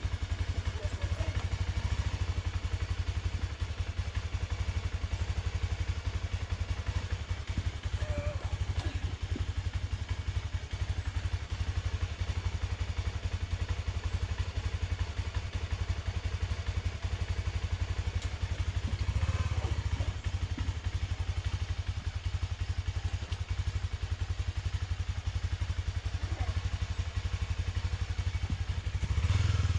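Honda Dominator dual-sport motorcycle's single-cylinder engine running at a steady low idle, the throttle opened briefly about two-thirds of the way through and again at the very end as the bike is worked up a stone step.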